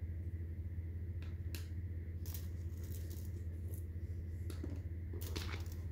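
Handling noise: scattered light clicks and rustles as a plastic tag is handled and a steel-bracelet watch is pulled from its fabric pouch, the loudest cluster near the end. A steady low hum sits underneath.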